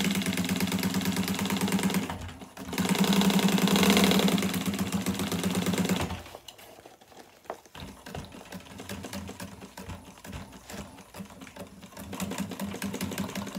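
Juki industrial sewing machine stitching a seam through sailcloth, its motor humming under a fast run of needle strokes. It runs hard for about six seconds, with a brief pause near two seconds in, then carries on more quietly for the rest.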